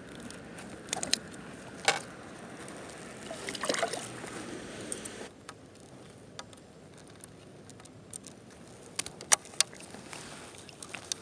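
Water sloshing and lapping around a belly boat on open water, with a handful of sharp clicks and knocks; the water noise eases about halfway through.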